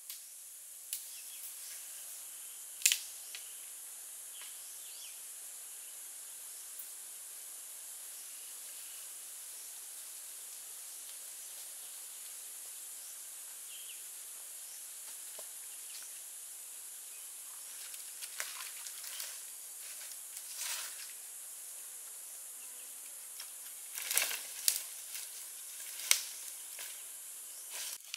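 A steady high-pitched insect chorus in woodland, with scattered crackles and snaps: one sharp snap about three seconds in and a cluster of louder ones near the end.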